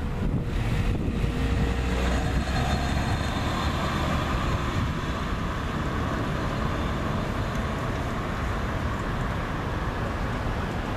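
Diesel-electric locomotives (two BNSF GE ES44s and a CSX EMD SD60) rumbling steadily as they move slowly past in a light-engine move. A car passes close by in the first couple of seconds, adding a heavier low rumble and a steady hum that fades.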